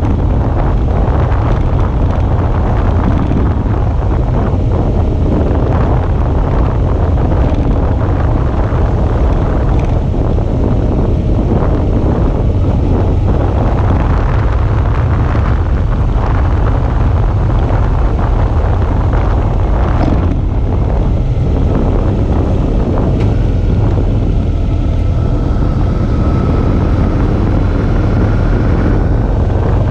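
Steady wind rush on the microphone over the running V-twin engine of a Suzuki V-Strom 650 motorcycle on the move.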